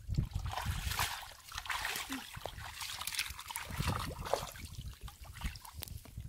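Shallow muddy water splashing and trickling as a person wades through it and gropes in it by hand, with many short splashes and drips that thin out near the end.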